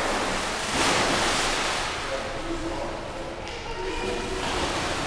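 Swimming-pool water splashing as an adult tosses a child into the water, loudest about a second in, then churning on more quietly.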